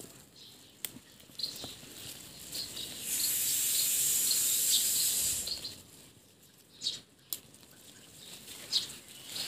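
Okra pods being picked by hand among dense plants: leaves rustle and a few sharp snaps come as pods are broken off. A steady high hiss, the loudest sound, sets in about three seconds in and stops about two and a half seconds later, and small high chirps come and go.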